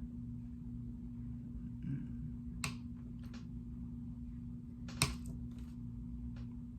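A few sharp clicks from a hand-held cable cutter and stripper working the end of an Ethernet cable, the loudest about five seconds in, over a steady low hum.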